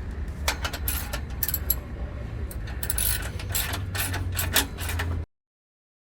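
Ratchet wrench clicking and metal parts clinking while exhaust clamp bolts are tightened, over a steady low hum. The sound cuts off abruptly about five seconds in.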